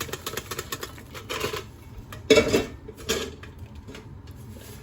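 Popcorn being shaken out of a stainless steel Whirley Pop stovetop popper, with quick rattling at first, then a loud metal clank a little over two seconds in and a lighter one about a second later.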